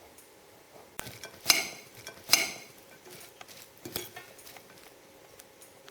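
Sliced onions being mixed with chopped garlic, green chilies and coriander in a mixing bowl: a handful of separate scrapes and clinks of a utensil against the bowl, the loudest two about a second and a half and two seconds in.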